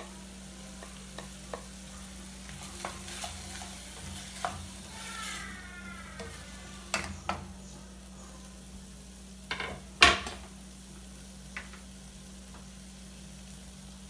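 Pork pieces, sausage and freshly added diced onion sizzling in hot oil in an aluminium pot, with a wooden spoon stirring and knocking against the pot now and then; the loudest knock comes about ten seconds in.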